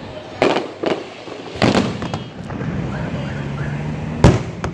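Aerial fireworks going off: five sharp bangs, with the loudest a little past four seconds in.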